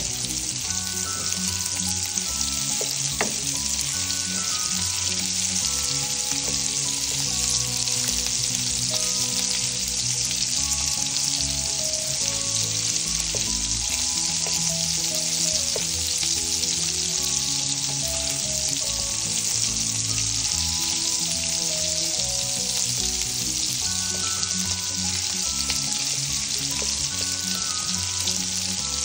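Sliced sausages sizzling steadily in hot oil in a frying pan, with a spatula stirring them now and then.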